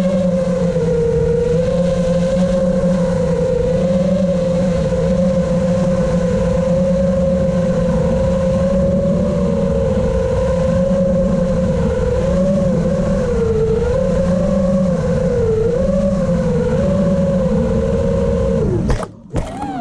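FPV racing quadcopter's motors and propellers whining steadily, the pitch wavering up and down with throttle changes. Near the end the whine falls sharply and almost cuts out, then comes back.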